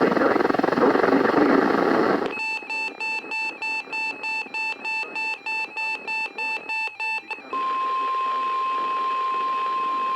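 Weather radio alert: a couple of seconds of loud radio hiss, then an electronic alarm beeping about three times a second for about five seconds. About seven and a half seconds in, the beeping gives way to the steady 1050 Hz NOAA Weather Radio warning alarm tone, which signals that a warning is about to be read.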